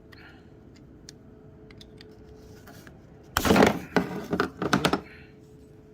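Quick series of loud hammer strikes on a pocket knife's pin, peening it down: a dense burst a little past halfway, then about half a dozen fast taps lasting about a second and a half. A few faint clicks come before it.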